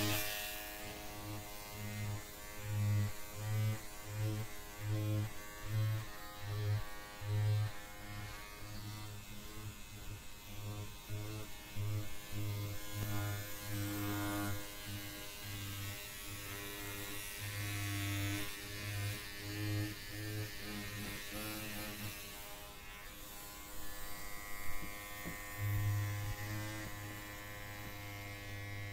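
Electric hair clippers buzzing. The buzz swells and dips in quick pulses, about one or two a second, through much of the stretch, and runs steadier near the end.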